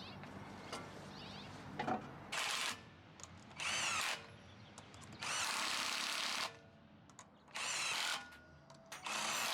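A power tool running lug nuts onto a wheel in about five separate bursts, each a short whirring spin that rises in pitch.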